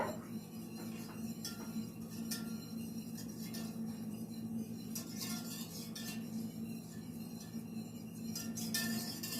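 Wire whisk stirring a milk-based sauce in a saucepan, clinking and scraping irregularly against the pan, over a steady low hum.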